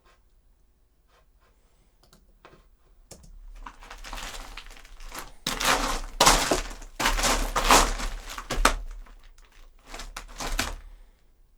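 Leather shoes crunching and scuffing on loose gravel in a foley box, recorded as footsteps to picture. It starts faintly about three seconds in, grows into dense, loud grinding crunches through the middle, and ends with a short last cluster of steps before stopping.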